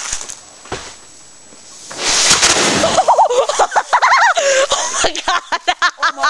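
A firework set in a hole in the ground goes off about two seconds in with a sudden blast that lasts about a second. Right after it come children's high-pitched shrieks and laughter.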